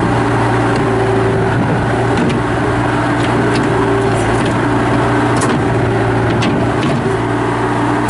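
Bobcat T300 track skid steer's Kubota turbo diesel engine running steadily, its note dipping briefly about two seconds in and again near seven seconds, with a few light clicks.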